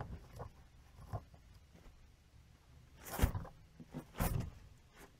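Baby guinea pigs scurrying and hopping in wood-shaving bedding: scattered rustles and scuffs, with two louder rustling bursts about three and four seconds in.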